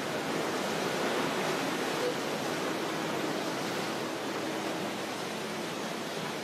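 Steady rushing hiss of river water streaming past a moving boat, with a faint low hum for a couple of seconds in the middle.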